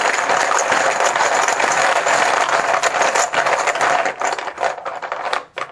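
Team chips being shaken and rattled together in a container to draw a random pick: a dense, loud clatter of many small clicks that stops suddenly near the end, with a few last clicks after.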